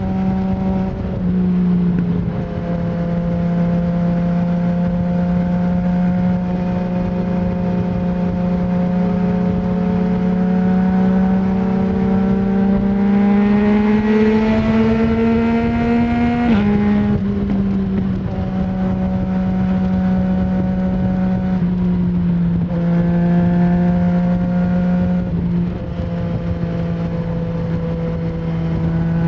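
2020 Yamaha MT-09's three-cylinder engine through an Akrapovic full-system exhaust with no dB killer, pulling steadily under way. Its pitch climbs slowly for several seconds, drops suddenly about sixteen seconds in, then holds steady with two small dips near the end.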